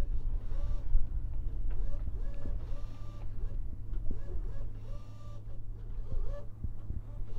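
A small motor whirring in many short whines, one after another, over a steady low hum.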